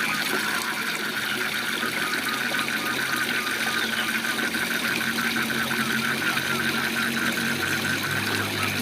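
Waterfall rushing steadily, with frogs calling in a rapid train of short, evenly repeated notes, several a second.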